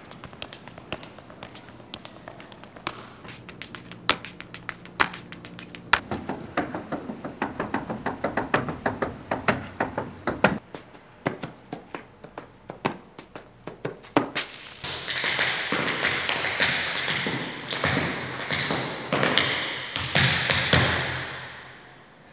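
Tap-dance footwork: shoes striking hard ground in quick rhythmic runs of sharp taps and heel thumps. About two-thirds of the way in, the steps turn to a loud rhythmic rustle and scuff, feet kicking and shuffling through dry leaves, which fades out near the end.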